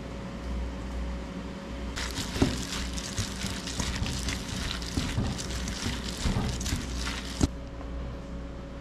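A plastic-gloved hand tossing and squeezing king oyster mushrooms dressed with ground perilla seed in a stainless steel bowl: wet squishing and glove crinkling with small knocks against the bowl, starting about two seconds in and cutting off with a sharp click near the end.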